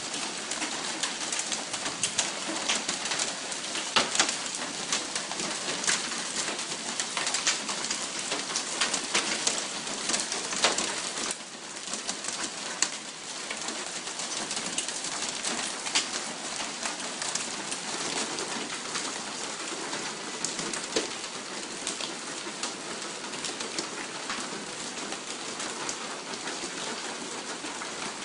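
Hail and rain falling on a car and the ground around it: a dense, steady patter full of sharp ticks. It is heaviest in the first ten seconds or so, then eases a little.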